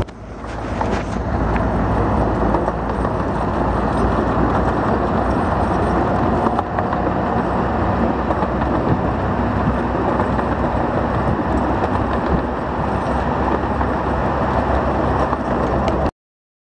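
A 15-inch-gauge train running, heard from on board: a steady rumble of wheels on the rails with a rush of air. It builds over the first second or two and then holds steady.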